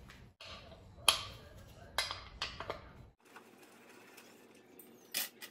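Sharp metal clicks and clinks from a 5/16 Allen key working the axle bolt of a scooter's front hub-motor wheel: the loudest about a second in, more near two seconds, then quieter handling and one more click near the end.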